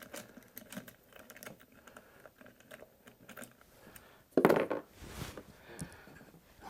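Small scattered clicks and light metallic taps of screws and rack hardware being handled and turned by hand. One loud knock comes about four and a half seconds in, followed by a brief rustle.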